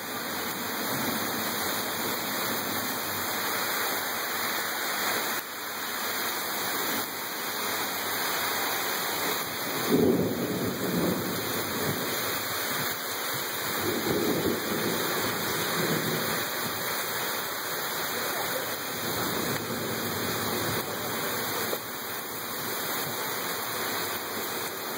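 Heavy thunderstorm rain pouring steadily onto pavement and cars, with a sudden loud clap of thunder about ten seconds in and a rumble of thunder a few seconds later.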